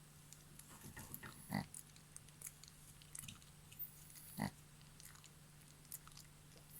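Snoring that comes as short oink-like 'buu buu' snorts, two of them about three seconds apart, with the small clicks of a snack being chewed in between.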